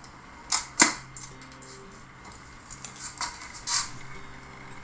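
A rubber balloon bursting as a blow dart hits it: a short crack followed a quarter second later by a louder, sharp pop. A few softer clicks follow a couple of seconds later.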